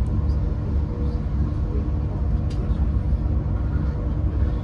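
Inside a Mark 3 coach of a Great Western Railway Castle-class HST running at speed: a steady low rumble of wheels and bogies on the track.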